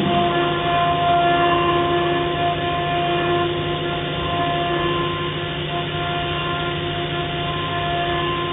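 STYLECNC ST6060H CNC milling machine's spindle running with a small engraving cutter milling letters into an aluminium plate: a steady whine of several held tones over a cutting hiss, swelling and easing slightly as the cut goes on.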